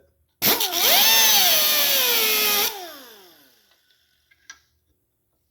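Handheld power tool running for about two seconds, its pitch dipping under load and recovering, then spinning down after release. A small click follows.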